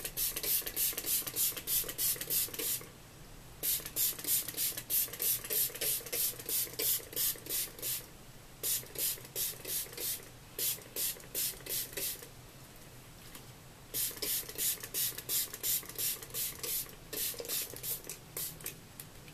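Hand-pump spray bottle of water being squeezed rapidly, about three short hissing squirts a second, in several runs with brief pauses between, misting water onto hair to dampen it.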